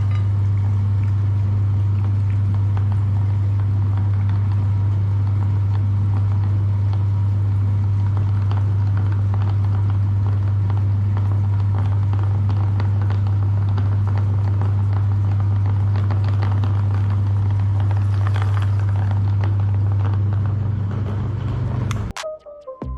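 Electric meat grinder running steadily with a strong low motor hum and a crackly grinding noise over it, as jelly is pushed through. The motor cuts off suddenly about a second before the end.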